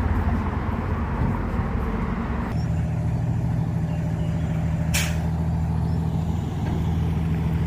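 Street traffic: a large motor vehicle's engine running with a low, steady drone that shifts to a new pitch about two and a half seconds in, and a short hiss about five seconds in.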